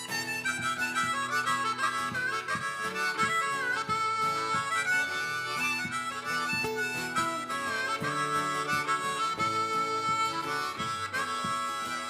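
Harmonica playing an instrumental solo over a steady band accompaniment of plucked notes and bass in a country-folk song.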